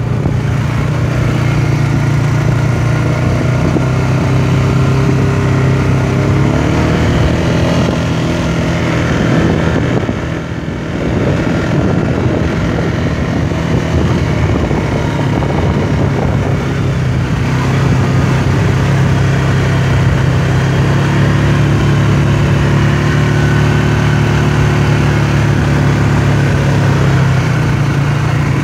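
Quad bike (ATV) engine running steadily, its revs rising a couple of times and easing off briefly about ten seconds in.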